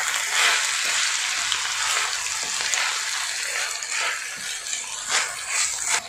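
Fenugreek seeds and spices sizzling in oil in a stainless steel kadhai while being stirred with a wooden spatula, with repeated scraping strokes of the spatula against the pan over a steady frying hiss.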